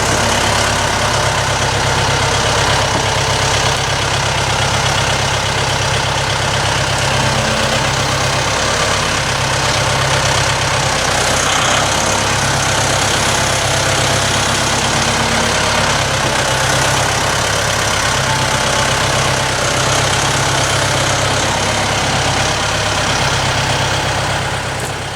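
Engine of a fork-equipped loader running steadily while it carries a large log, easing off slightly near the end.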